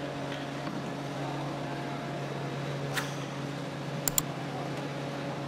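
Steady hum of workshop machinery, with metal shock absorber parts clicking against a hanging rack as they are hooked on by hand: one click about three seconds in and two sharp clicks close together near the end.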